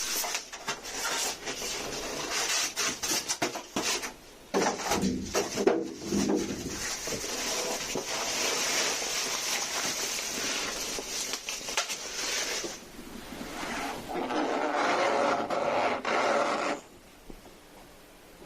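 Rubbing, scraping and knocking of TV packaging being handled during unboxing, with a run of sharp clicks and bumps early on and a steady hiss of rubbing in the middle. It stops abruptly near the end.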